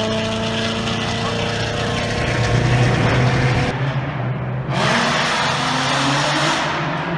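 Car engines and exhausts running at highway speed, heard from inside a car in the convoy. The sound changes abruptly about halfway through, and an engine then climbs in pitch as it accelerates.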